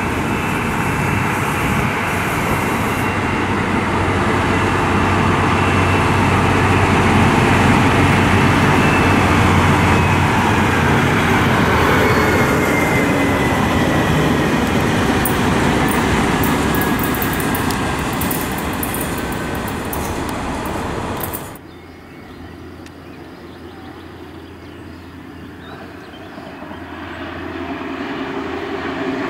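DB class 218 diesel-hydraulic locomotive moving at shunting speed close by, its diesel engine running steadily with a whine that slowly falls in pitch and scattered sharp clicks near the end of the pass. About 21 seconds in it cuts off suddenly to a quieter, distant class 612 diesel railcar, growing louder near the end.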